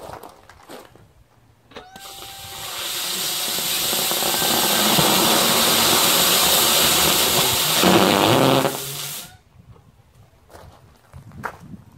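Small homemade polypropylene and gaseous-oxygen hybrid rocket engine firing through a 3.5 mm hole drilled in a brass end cap: a loud jet hiss that builds over about a second, runs steady for about six seconds, grows harsher and lower near the end, then cuts off suddenly.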